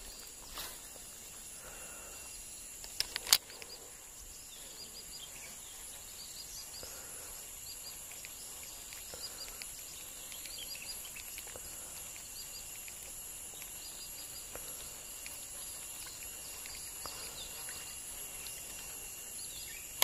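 Steady, high-pitched insect drone with faint short chirps repeating through it. A couple of sharp clicks about three seconds in.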